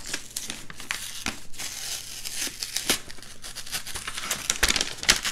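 White tissue-paper wrapping crinkling and rustling as a package is unwrapped by hand, with irregular sharp crackles while its sealing sticker is peeled away.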